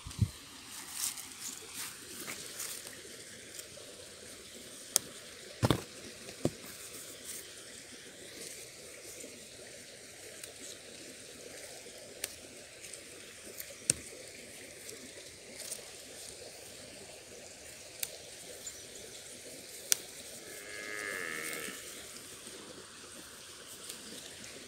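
A cow lowing once for about a second and a half near the end. Before it, leaves rustle and branches give sharp clicks and snaps as they are pushed aside and handled.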